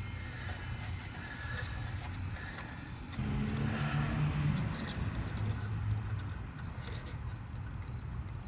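A car's engine running, with a steady low hum that swells for a second or two about three seconds in, and a few light clicks over it.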